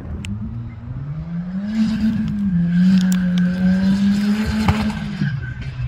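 Polaris Slingshot's engine accelerating away, its note climbing, dipping briefly about two seconds in, then holding steady before falling off near the end. A few sharp clicks and ticks sound over it.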